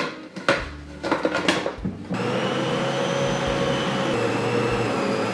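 A plastic lid clatters and clicks into place on the bowl of a Bosch stand mixer. About two seconds in, the mixer's motor starts and runs steadily with a whine, turning the dough hook to mix bread dough.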